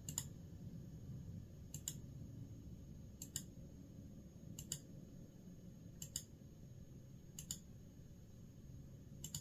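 Faint single clicks of a computer mouse button, evenly paced at about one every second and a half, seven in all, over low steady room noise.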